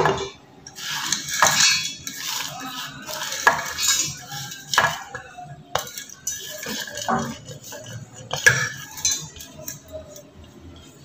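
Stainless-steel plate clinking and scraping against the rim of a steel mixer-grinder jar as chopped onion, roasted gram dal and whole spices are pushed into it by hand, in irregular short knocks and clinks.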